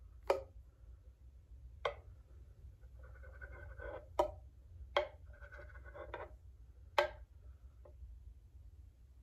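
Steamed milk being poured from a stainless steel pitcher into a ceramic espresso cup for latte art: a faint soft pouring sound in two short stretches, with about six sharp clicks scattered through it.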